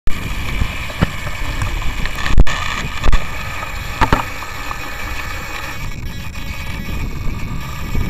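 Wind buffeting the microphone of a small camera on an RC helicopter, with a few sharp knocks in the first half as the camera is moved from facing the sky to resting on the pavement. A steady higher hum fades out about six seconds in.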